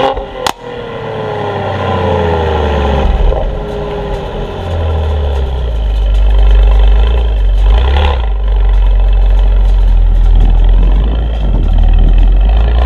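Mercedes-AMG GLE 43's 3.0-litre twin-turbo V6 exhaust, its revs falling away over the first few seconds with a sharp pop about half a second in, then a loud, steady low rumble.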